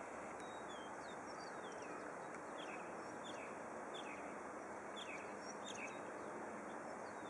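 A small bird chirping: short, high, falling notes about every half second to second, over a steady outdoor background hiss.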